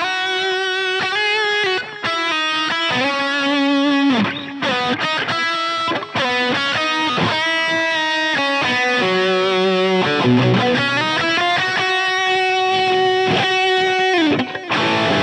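Electric guitar played through a Line 6 HX Stomp amp-and-effects preset: a single-note lead melody with long held notes and vibrato, and a slow bend upward about ten seconds in.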